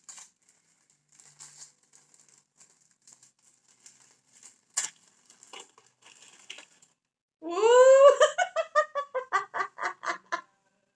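Faint crinkling and clicks of a gift's packaging being handled, with one sharp click about halfway through. Near the end, a loud rising "woo!" breaks into laughter, about four bursts a second.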